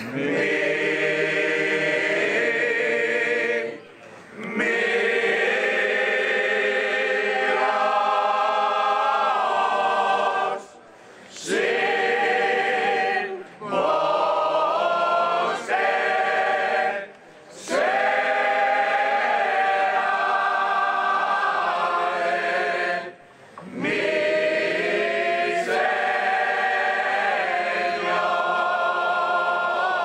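A group of mostly men's voices singing a Holy Week copla unaccompanied, in long sung phrases separated by short breaks for breath.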